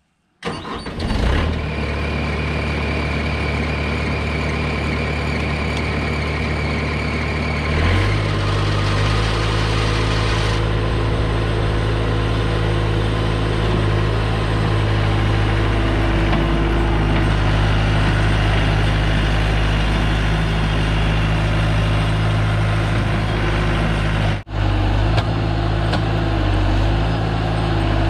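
Bobcat T250 compact track loader's diesel engine starting, running steadily for a few seconds, then throttling up about eight seconds in and holding at a higher speed.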